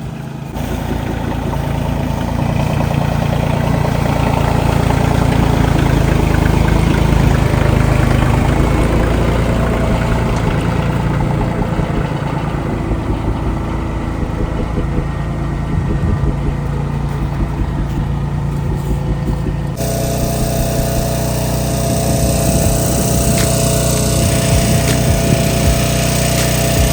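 A small engine running steadily. About twenty seconds in, it changes abruptly to a different steady engine sound with a higher hum.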